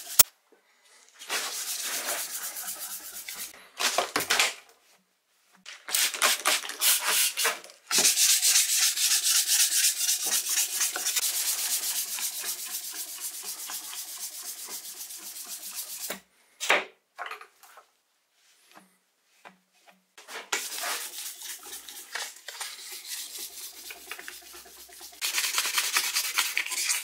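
Rust being rubbed off an old Soviet steel wrench by hand with an abrasive, in spells of rapid scraping strokes broken by short pauses.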